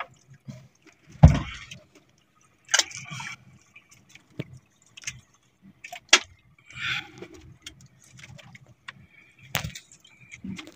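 Scattered knocks, clicks and rattles of hands handling a squid jig, fishing line and a plastic catch basket aboard a small boat. The loudest is a thump about a second in.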